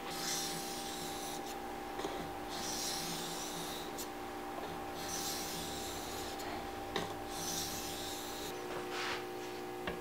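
A 1,000-grit sharpening stone on an Edge Pro guide arm being cleaned by rubbing a thin flat piece along its face. There are about four long, even scraping strokes with short pauses between them.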